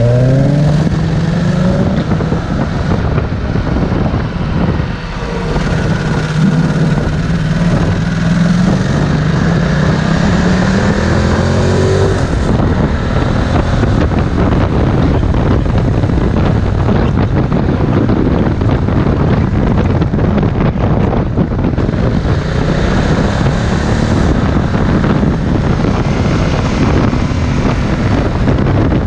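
Ducati Multistrada 1260 S's V-twin engine under way, its revs rising as the bike accelerates in the first half, with heavy wind rush on the microphone; in the second half the wind rush covers most of the engine.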